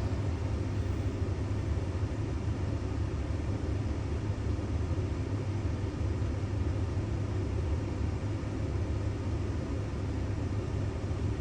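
A vehicle running with a steady low rumble.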